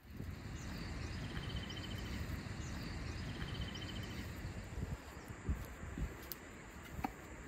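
Rural outdoor ambience: a steady rushing noise with two short, rapid buzzing trills in the first half, faint high chirps, and a few light clicks in the second half.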